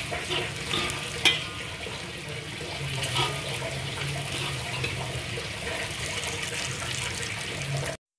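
Potatoes, anchovies and chillies stir-frying in oil in a wok: a steady sizzle, with a metal spatula scraping and clicking against the pan, loudest once about a second in. A low steady hum runs underneath, and the sound cuts off near the end.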